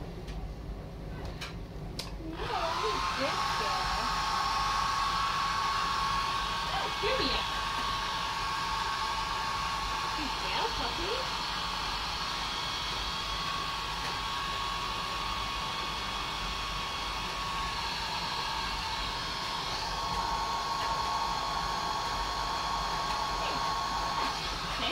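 A few clicks, then a handheld hair dryer switches on about two seconds in and runs steadily: a rush of air with a thin high whine, drying a wet puppy's coat.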